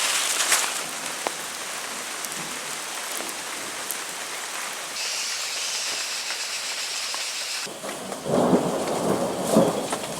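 Heavy rain falling steadily, with a loud rumble of thunder starting about eight seconds in.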